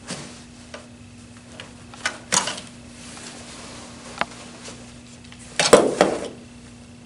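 Plastic hood tabs being pulled out of an infant car seat's plastic shell: a few sharp plastic clicks and knocks, with a louder clatter near the end.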